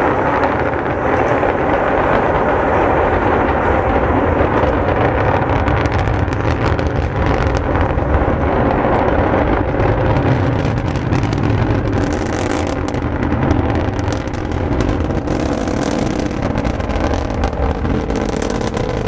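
Antares rocket's two AJ26 first-stage engines heard from about two miles away during ascent: a loud, steady rumble with a rapid crackle.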